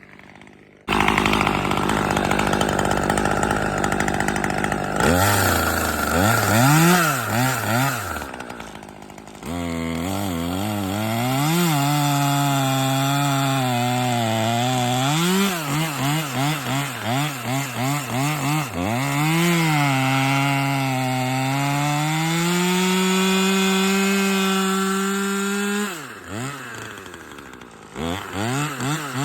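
Husqvarna T540XP Mark III two-stroke top-handle chainsaw cutting wood. The engine note sags and recovers as the chain is loaded, with short revs up and down between cuts.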